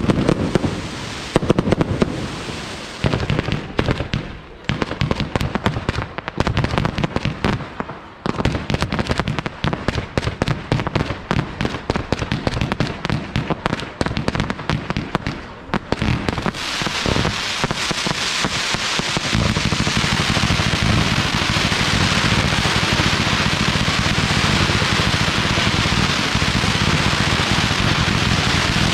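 Aerial fireworks show: a fast, irregular string of bangs for about the first sixteen seconds, then a dense, continuous crackling that holds steady to the end.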